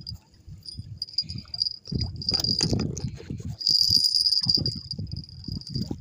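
Crickets chirping steadily in a high, continuous trill, loudest about four seconds in. Low rumbling and knocking noises come and go underneath, strongest about two to three seconds in.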